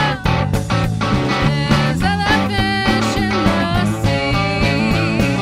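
Rock band music: a female lead vocal with vibrato sung over electric bass, electric guitar and a drum kit with cymbals.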